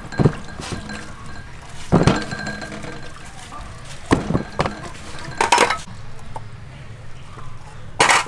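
Pieces of bitter melon being picked up and knocked down onto a stainless steel tray: several separate sharp clinks of the metal tray, spread out, the loudest near the end.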